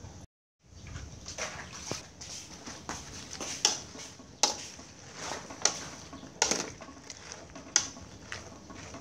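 Metal ladle clinking and scraping against a metal cooking pot while leafy greens are stirred, about one sharp knock a second over a steady hiss.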